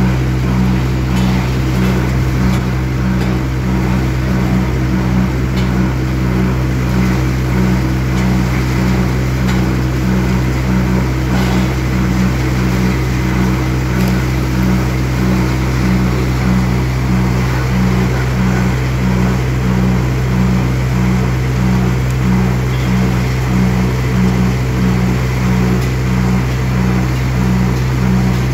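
Tractor-powered bucket-type multi-grain thresher running, a steady mechanical hum with a regular throb a little under twice a second, as dry crop stalks are fed into it.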